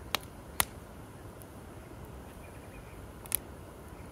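Split firewood burning in a campfire, crackling with three sharp pops, two within the first second and one a little over three seconds in, over a low steady background.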